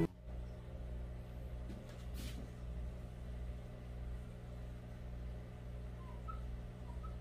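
Low, steady hum of room tone, with a faint brief rustle about two seconds in and a few faint short high squeaks near the end.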